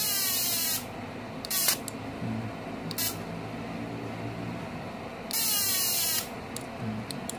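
High-frequency arc starter of a GENERAL MMA/TIG welding inverter firing, the tungsten throwing a buzzing, hissing spark to the workpiece in two bursts of about a second each, at the start and about five seconds in, with a few short clicks between. The spark shows that the repaired spark-gap points ('platina') in the TIG circuit are working again.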